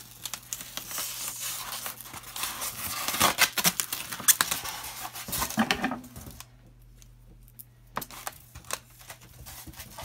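Packaging being handled: plastic wrapping and a styrofoam insert rustle and crinkle with many clicks and knocks for about six seconds, then only a few faint taps.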